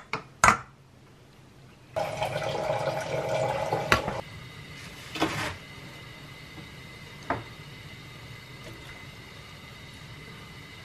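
Water pouring into a cooking pot for about two seconds, set between several sharp knocks and clatters of kitchenware. A steady low hum runs underneath.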